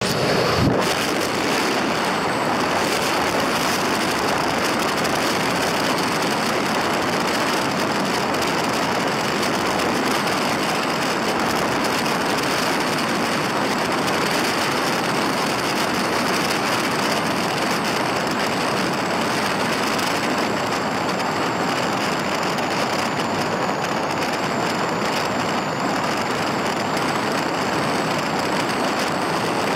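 Steady road noise inside a car's cabin driving at speed on a paved highway: an even hiss of tyres and wind with the engine underneath.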